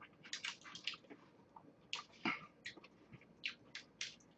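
Flaky, paper-thin layered pastry crackling faintly as it is torn apart by hand: a scatter of short crisp crackles.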